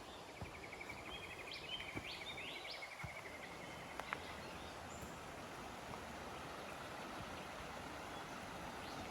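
Steady rushing of running water, with a bird giving a rapid trill and a few short rising whistles during the first three seconds.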